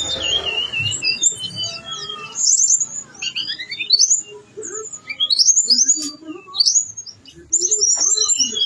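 Tledekan gunung songbird singing a long, continuous, varied song of quick high whistles, rising and falling sweeps and trills, including mimicked phrases of other birds.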